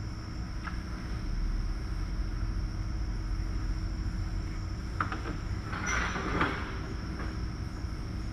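Steady low mechanical hum with a constant tone running through it. A few clicks and a short rustling scuffle come about five to six and a half seconds in.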